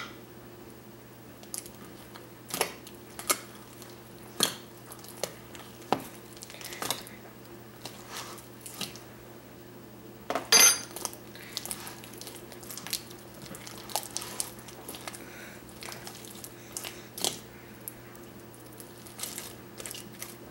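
Thick slime being mixed in a container: scattered sticky clicks and knocks against the container, with a sharper ringing clink about ten and a half seconds in.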